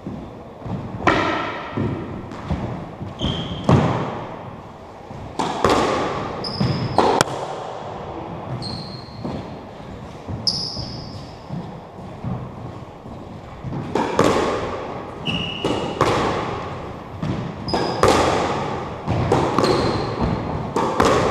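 Squash rally: the ball hitting the rackets and the court walls, each hit echoing in the enclosed court, with short, high sneaker squeaks on the wooden floor. The hits come in bunches, with a quieter spell of a few seconds midway.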